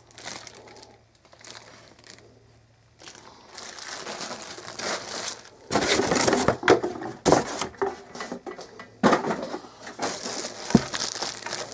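Cardboard box and plastic wrapping rustling and crinkling as packaging is handled inside a shipping box. Faint for the first few seconds, then louder irregular rustling and knocks from about six seconds in, with one sharper knock near the end.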